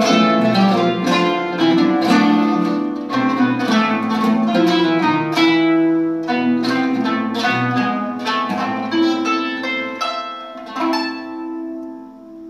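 Kanun and oud playing a duet in Turkish style, quick plucked notes from both instruments. Near the end the playing stops and the last notes are left ringing and fading away.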